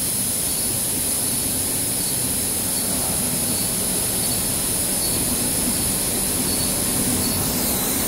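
Steady running noise of a silicone cable production line, a continuous hum and hiss with a thin high whine over it that shifts slightly near the end.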